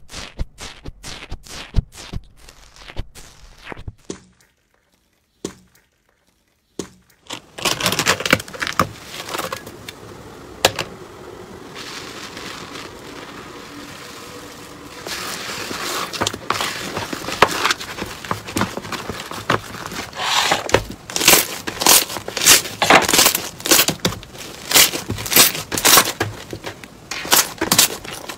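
Slime handled by hand: a fingertip presses into white slime with a run of small crackling pops, and after a few seconds of silence blue slime is stretched into strands and kneaded, crackling and tearing. The crackling grows louder about halfway through, with sharp squishy pops near the end.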